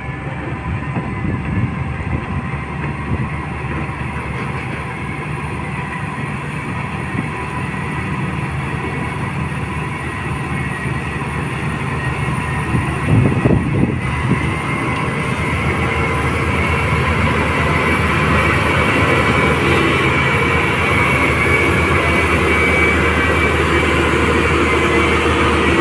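LiuGong 848H wheel loader's diesel engine running under load as it pushes iron ore, a steady low drone with a thin whine on top. There is a brief clatter about halfway through, and the engine grows louder over the second half as the machine comes close.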